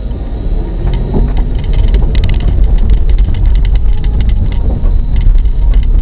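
Car driving on a snow-covered forest road, heard from inside: a steady low engine and road rumble with rapid crackling from the tyres on snow. It grows louder over the first second or two.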